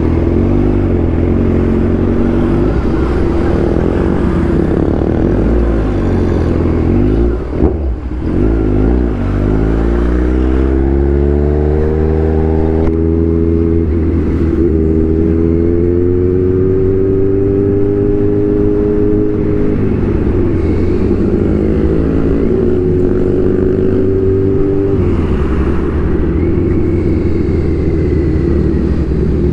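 Kawasaki Z1000 inline-four motorcycle engine under way, its pitch climbing as it accelerates and dropping back at each gear change or roll-off, several times over.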